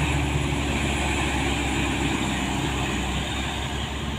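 Diesel tour bus engine running as the bus drives away around a bend, its low steady drone slowly fading.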